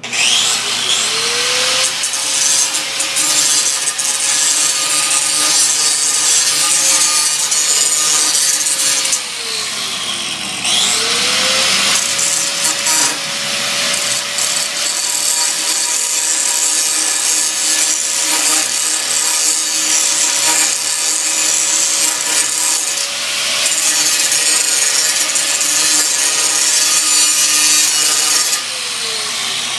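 A 4.5-inch electric angle grinder switched on, its motor whine rising as the wheel spins up and then running steadily with a loud hiss of grinding. About nine seconds in it winds down, is started again a couple of seconds later, and winds down once more near the end.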